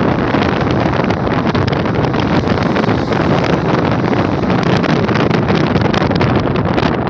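Lada 2107 sedan driven hard, spinning its rear tyres and sliding in circles on loose gravel, with stones and grit spraying out and wind buffeting the microphone.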